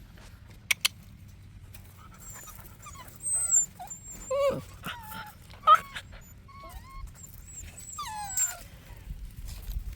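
Central Asian shepherd puppies whimpering and whining, a string of short, rising and falling squeals and yelps, some very high-pitched. Two sharp clicks sound just before the first second.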